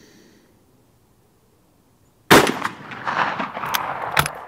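A single rifle shot from a Mauser Model 71/84 in 11mm Mauser, about two seconds in, its report echoing and dying away over the next two seconds. A few sharp clicks near the end come as the bolt is worked.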